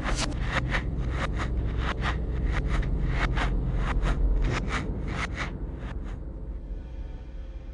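Quick rough scraping strokes, about four a second, over a low steady drone; the strokes stop about six seconds in.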